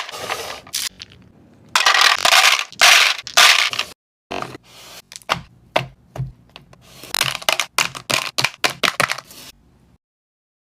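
Lots of small hard candies poured and clattering together, first in loud rattling pours, then as scattered separate clicks that stop near the end.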